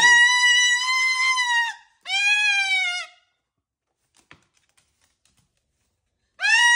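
Moluccan cockatoo giving long, drawn-out calls: two in the first three seconds, the second shorter and falling in pitch, then another starting near the end.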